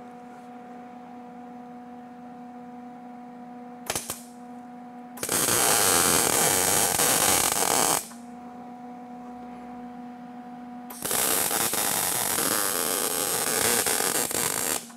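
Electric welder welding nuts onto broken bolt stubs so they can be backed out. A steady hum throughout, a brief crack about four seconds in, then two welds of about three and four seconds, each a loud, steady hiss.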